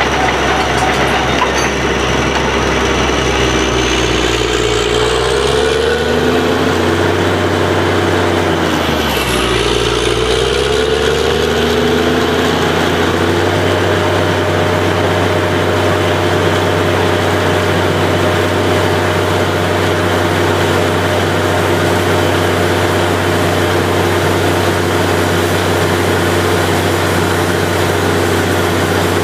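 Borewell drilling rig's engine running loud and steady. Its speed rises a few seconds in, dips sharply for a moment about nine seconds in, picks up again, and then holds, with a high whine that follows the engine speed.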